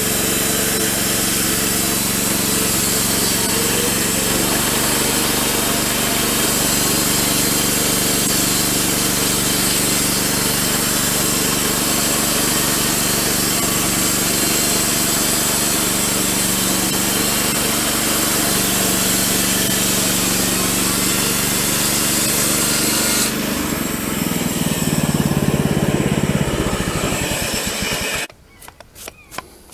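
Woodland Mills HM-126 portable bandsaw mill running, its gas engine driving the blade through a cedar timber with a steady drone and saw hiss. About 23 seconds in the hiss of the cut drops away and the engine note rises. A few seconds later the sound cuts off suddenly, leaving a few faint clicks.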